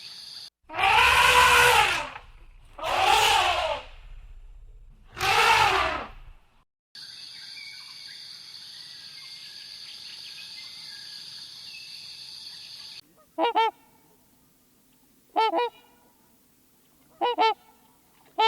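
Large birds honking: three loud, drawn-out honks in the first six seconds, then a steady high insect chorus, then four short double honks about two seconds apart.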